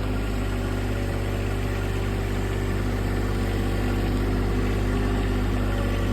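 Small tractor's engine running steadily, its front-end loader carrying a heavy round hay bale.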